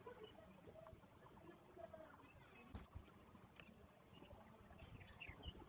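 Quiet indoor room tone with a steady high-pitched whine, and one sharp knock about three seconds in.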